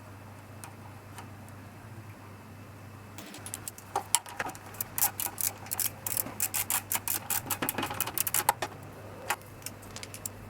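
Small metal parts and tools being handled on a mower engine, a dense run of sharp irregular clicks and ticks starting about three seconds in and thinning out near the end, over a steady low hum.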